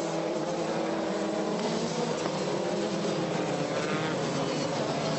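Pack of 2009 Formula Two single-seaters, each with a turbocharged four-cylinder engine, accelerating together after the race start. Several engine notes overlap and climb in pitch through the gears, with a rising whine about four seconds in.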